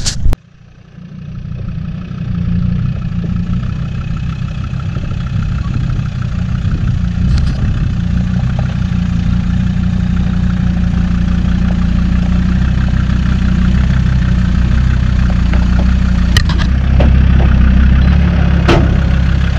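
Off-road vehicle's engine running steadily at low revs, fading up over the first couple of seconds, with a few faint clicks.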